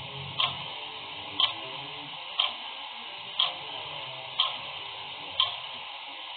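Clock ticking steadily, one tick a second, over a faint steady hiss.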